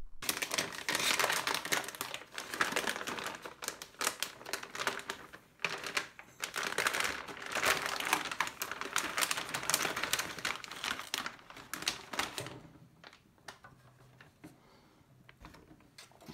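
Crinkling and crackling of a plastic anti-static bag being handled as a motherboard is slid out of it. The crinkling is busy and dense for about twelve seconds, then drops to faint, occasional rustles.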